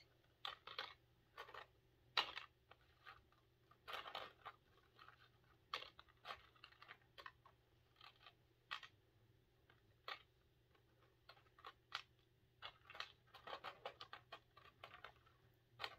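Small plastic beads and charms being moved around by hand in their kit box: faint, scattered clicks and light rattles, irregular throughout.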